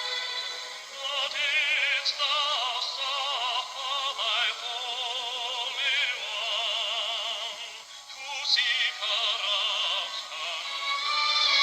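Background music with a singing voice holding long notes with heavy vibrato.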